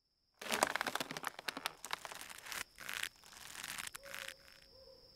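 Dense crunching and crackling, like something dry being crushed, for about two seconds, then a few shorter crunches, over a steady high cricket trill.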